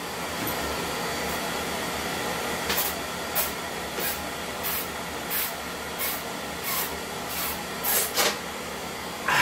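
A man shotgunning a can of beer, gulping it down through a hole punched in the side of the can: a steady hiss, with about ten gulps coming roughly every two-thirds of a second from about three seconds in.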